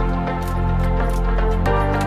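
Background electronic music: sustained synth chords over a steady bass line, with the chord changing about a second and a half in.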